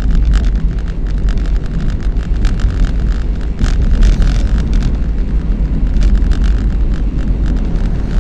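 An old car driving, heard from inside the cabin: a steady low rumble of engine and road noise with wind buffeting the microphone in rapid crackles.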